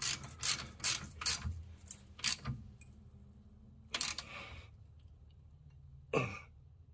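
Hand ratchet clicking in short strokes as the brake caliper's mounting bolts are run in: a quick series of clicks over the first couple of seconds, then two more short strokes about four and six seconds in.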